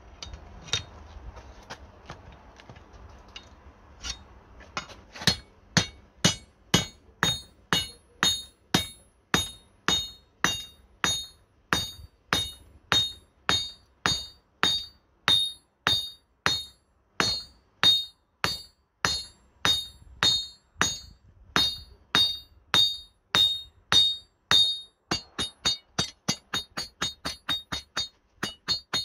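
Hand hammer forging a red-hot spring-steel bar on an anvil. Each blow lands with a bright metallic ring of the anvil. The blows begin about five seconds in, come about two a second, and quicken to about three a second near the end.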